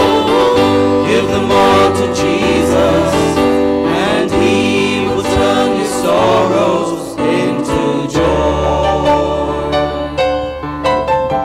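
Choir singing a hymn with keyboard accompaniment. About seven seconds in, the voices drop out and the keyboard plays on alone.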